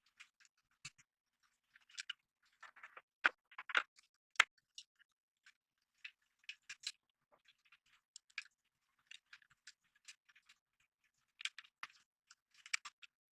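Hands handling computer parts during assembly: scattered small clicks, taps and rustles, with a few sharper knocks about three to four and a half seconds in and again near the end.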